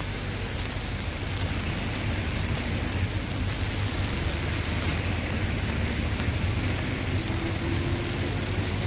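Steady hiss with a low hum underneath, the noise of an old film soundtrack, getting slightly louder about a second and a half in.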